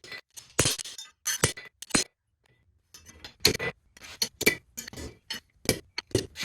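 Hammer blows on a bent steel pallet-rack piece to straighten it: sharp metallic clinks. A few blows come first, then a pause of about a second, then a quicker run of blows.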